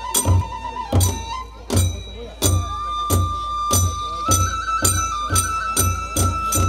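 Kagura festival music: a large ōdō barrel drum struck with sticks in a quickening beat, with small metal hand cymbals clashing on the strokes, over a bamboo kagura flute holding long high notes that step upward twice.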